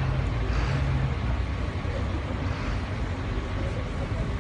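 Steady outdoor rumble of running vehicle engines and street traffic, with a low engine drone that stops about a second in.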